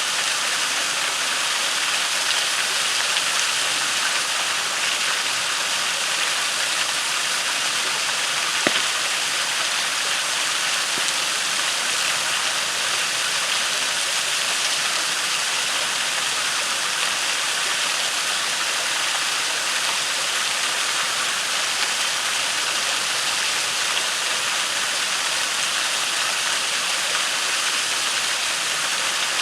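Waterfall rushing steadily into a creek pool, with one sharp pop from the campfire about nine seconds in.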